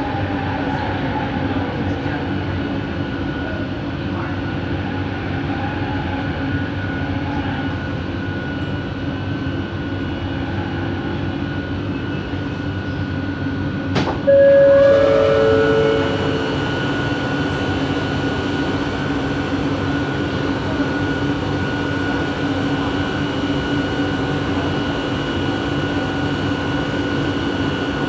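Cabin sound of a Bombardier Innovia ART 200 metro train running, with the steady hum and whine of its linear induction motor drive, the weird motor noise. About halfway there is a sharp click, then a brief louder two-note tone stepping down, after which a higher steady whine joins the hum.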